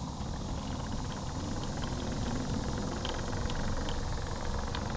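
Segway MiniPro self-balancing scooter wheels rolling over wooden boardwalk planks: a steady rumble and vibration, with fine rapid ticking and a few sharper clicks as the tyres cross the plank joints.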